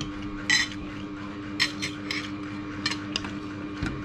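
Metal spoon and fork clinking and scraping against a ceramic plate of rice: about seven short clinks, the loudest about half a second in, over a steady low hum.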